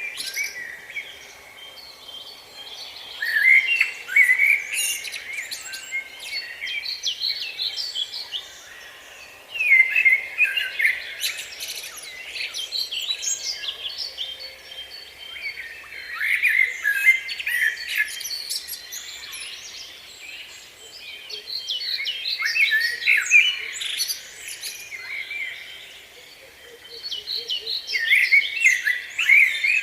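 A songbird singing in short, chattering phrases of a couple of seconds each, repeated about every six seconds, with quieter chirps in between.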